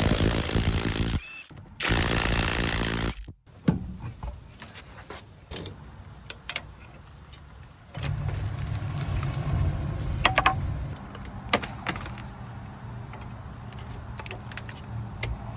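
Two bursts of an impact wrench, each a little over a second, loosening the bolts of a brake caliper during its removal, followed by scattered metal clinks and knocks from handling the bolts and caliper.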